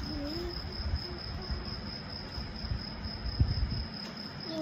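Rustling and bumping from a card strip of bow hair clips being waved about and raised near the microphone, with the loudest bumps a little past three seconds in. A steady high-pitched whine runs underneath throughout.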